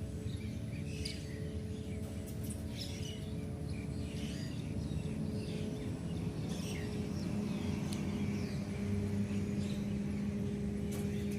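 Birds chirping in many short, quick calls throughout, over a steady low hum.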